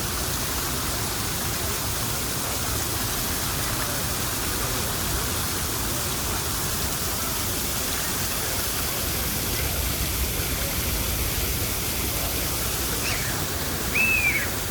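Steady rushing of falling water, like a fountain or cascade, with a brief high chirp near the end.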